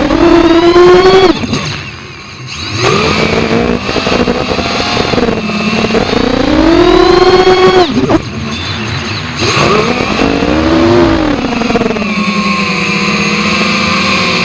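FPV racing quadcopter's brushless motors and propellers whining, the pitch rising and falling with the throttle. A throttle cut about a second and a half in drops the sound to a brief lull before the motors spin back up. A second sudden cut comes about eight seconds in, and the sound settles to a steadier whine near the end. Heard close up, as recorded on the quad itself.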